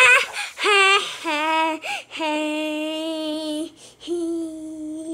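A child singing wordless held notes: a few short rising ones, then two long, steady notes with a slight wobble.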